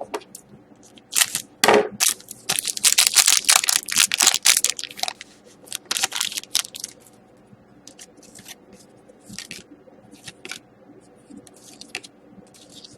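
Hockey trading cards and their packaging being handled: a run of rustling, crinkling and sliding noises in the first half, thinning to lighter scattered clicks and rustles later.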